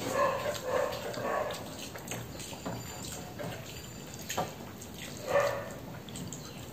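Pet dog making a few short, pitched calls: a quick cluster in the first second and a half and one more about five seconds in.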